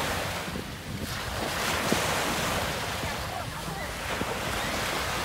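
Small sea waves breaking and washing up on a sandy shore in a steady hiss, with wind buffeting the microphone.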